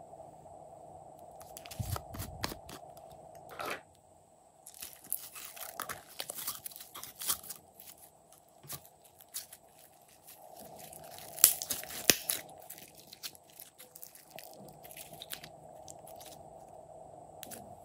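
Hands squeezing and pressing glossy slime, making clusters of sticky crackles, pops and clicks that come and go. The loudest pops come a little past the middle. A dull knock about two seconds in is likely the plastic container being handled.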